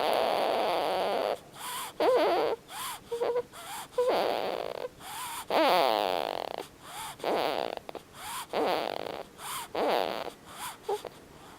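Snoring: irregular noisy breaths roughly once a second, some with a squeaky, whining pitch.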